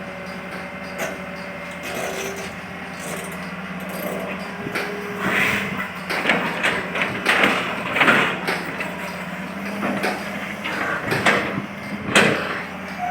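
Excavator engine running steadily with a low hum, while irregular knocks and clattering build up in the second half as it works loading soil into a truck.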